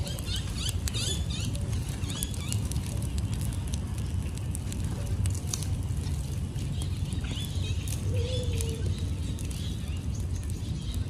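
Dry palm fronds burning in a large open fire, crackling and popping irregularly over a steady low rumble.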